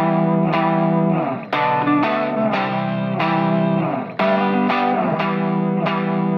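Background music led by an effects-laden electric guitar playing sustained chords with regular note attacks. The sound briefly drops away twice, about a second and a half in and again about four seconds in, between phrases.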